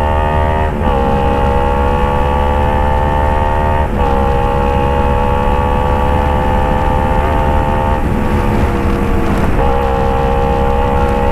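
Kawasaki Ninja 250 FI parallel-twin engine breathing through a Phoenix aftermarket exhaust, running loud and pulling steadily with its note slowly climbing, dipping briefly in pitch three times. A crackling microphone adds a rough edge to the sound.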